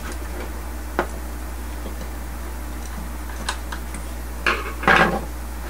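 A few separate light metallic clicks and clinks as hands and a screwdriver work at the screws and circuit board inside an opened computer power supply's metal case. The loudest come together near the end, over a steady low hum.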